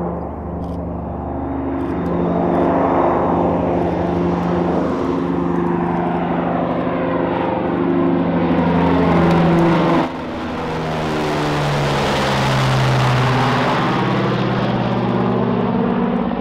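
Boeing B-29 Superfortress's four Wright R-3350 radial engines running at takeoff power, a loud multi-engine drone as the bomber climbs overhead. About ten seconds in, the pitch drops as it passes and moves away.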